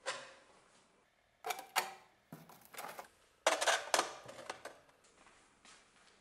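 Handling noises from a plastic water bottle and steel rods being set up as an electrolysis bath: several bunches of short clicks and clatters as the bottle is handled and the rods knock against it.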